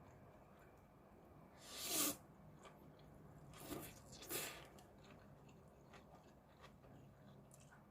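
A person eating tofu-noodle pasta: three short airy swells, the loudest about two seconds in, and faint chewing between them.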